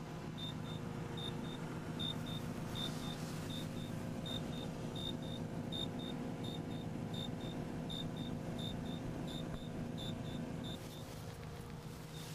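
Steady low hum with a short, high chirp repeating about three times a second, often in pairs; the hum drops slightly near the end.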